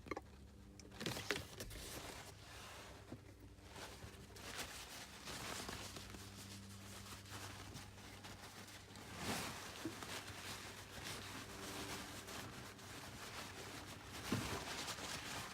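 Paper towel rustling and rubbing over a car's gear shift knob in uneven wiping strokes, with a faint steady low hum underneath.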